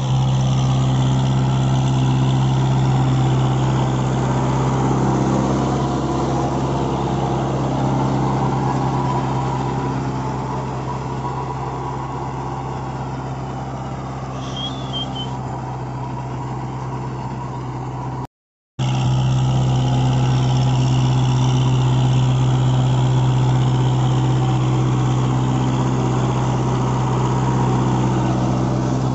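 A Kubota MU4501 tractor's four-cylinder diesel engine runs steadily under load while driving a six-foot Shaktiman rotavator through dry soil. The sound fades somewhat as the tractor draws away, breaks off briefly about two-thirds of the way in, and is loud and close again afterwards.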